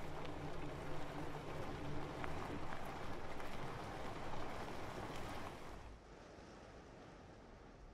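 Subaru Outback wagon driving on a gravel road: engine running and tyres rolling over gravel. The noise falls away sharply about six seconds in.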